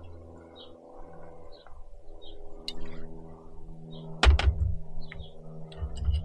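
Small birds chirping in short repeated calls over a steady low hum. A sharp double knock comes about four seconds in, followed by gusts of wind rumbling on the microphone.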